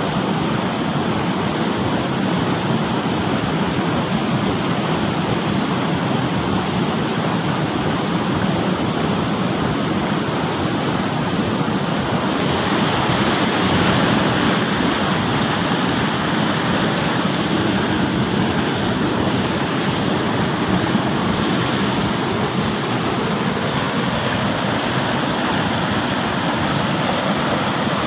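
Steady rush of a small waterfall and stream, growing a little louder and hissier about halfway through.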